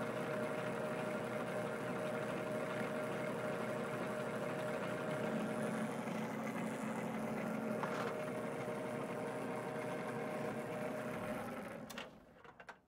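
Belt-driven metal lathe running under power with a steady hum and a couple of steady tones. A little before the end it is switched off and winds down within about a second, with a sharp click as it stops.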